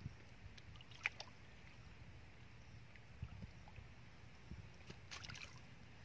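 Faint splashing and sloshing of shallow muddy water as hands grope through it for fish. There is a short splash about a second in and a brief flurry of small splashes near the end, over a low steady rumble.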